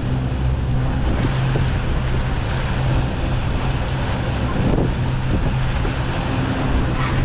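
SeaVee 32 center-console boat's outboard motors running with a steady low hum, with wind and water noise.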